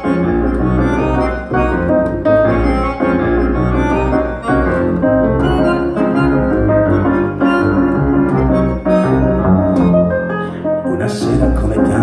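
Piano accordion playing sustained chords and melody over a double bass line in the instrumental intro of a live folk song. A hissing high-pitched percussion sound comes in near the end.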